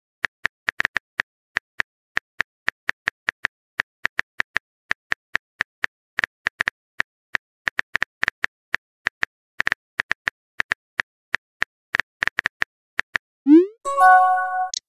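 Simulated phone-keyboard typing clicks, quick and uneven at several a second, the sound effect of a message being typed in a texting app. Near the end a rising swoosh and a bright chime mark the message being sent.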